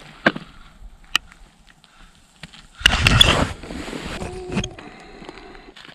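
Handling noise: scattered sharp clicks and knocks, with a loud rustling burst about three seconds in that lasts under a second.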